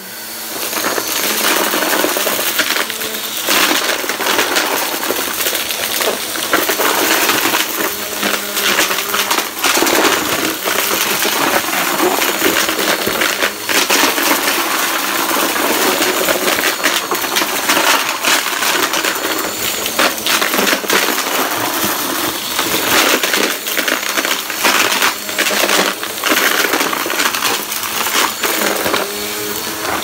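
Upright vacuum cleaner running as it is pushed over cardboard, with small debris crackling and rattling as it is sucked up. The motor comes on at the start, reaching full speed within about a second.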